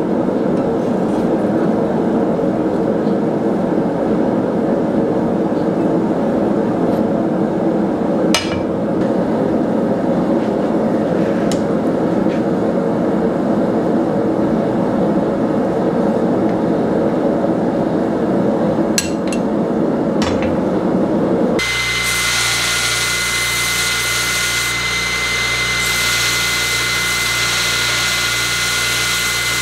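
Steady roar of a propane forge burner, with a few sharp metal clicks as hot steel is worked. About two-thirds of the way through it cuts to a belt grinder running with a steady high whine, grinding steel.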